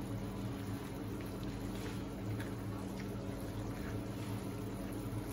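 Pork belly and coconut milk simmering in a non-stick pan, bubbling, with a silicone spatula stirring through the meat and a few faint taps. It is simmering down to reduce the sauce. A steady low hum runs underneath.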